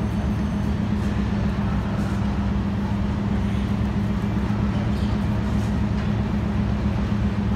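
Diesel locomotive engine running steadily: a loud, even low drone with a constant hum.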